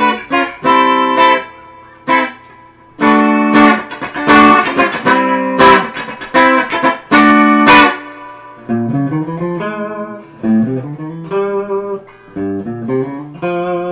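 Squier Starcaster semi-hollow electric guitar played through an amplifier on its bridge pickup with the tone turned up a little, giving a twangy sound: loud picked chords, then quieter single-note lines lower down from about eight seconds in.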